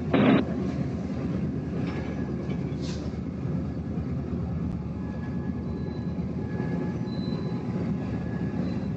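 Train running on the track with a steady rumble and faint thin high tones. A short, loud burst of noise comes right at the start.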